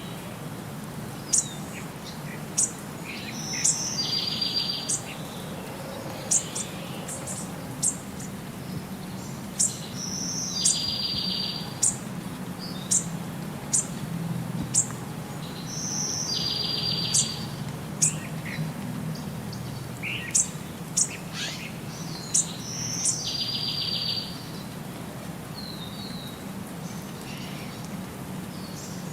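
Birds chirping and singing: short, sharp high chirps about once a second, with a buzzy high trill that comes back every six seconds or so.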